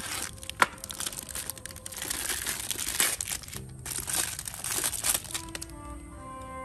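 Crinkling and rustling of the wrapping of a new piston ring set as it is torn open and the rings pulled out, with a sharp click about half a second in. Background music with clear held notes takes over near the end.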